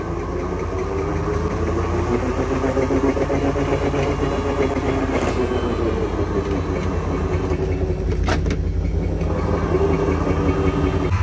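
PT Cruiser's engine running and revving while the car is driven out of a stuck spot, its note rising slowly, falling, then rising again near the end. The car has lost power and the owner says its transmission is done. A short click about eight seconds in.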